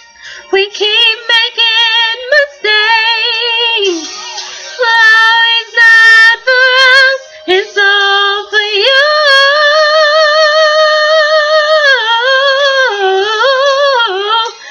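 A woman singing a gospel ad-lib solo with no accompaniment: ornamented vocal runs with no clear words, then a long note held with vibrato from about nine to twelve seconds in, falling away near the end.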